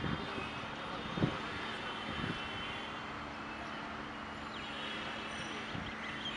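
Steady background roar of city traffic, with a single faint knock about a second in.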